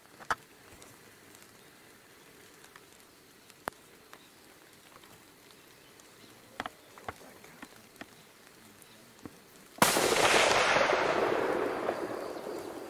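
A single rifle shot about ten seconds in: a sudden sharp crack followed by a long rolling echo that fades over about three seconds. A few faint ticks come before it.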